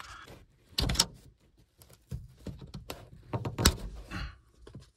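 A trim tool prying at the small plastic trim cover over a car's sun visor mount: a series of plastic clicks, taps and scrapes, the sharpest about a second in and again at about three and a half seconds.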